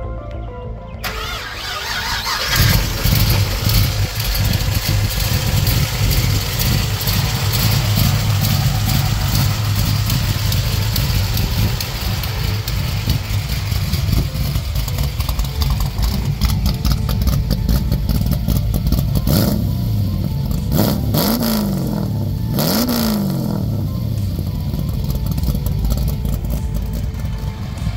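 1972 Chevrolet Nova's 383 V8 running steadily, then revved twice near the end, its note rising and falling in pitch each time.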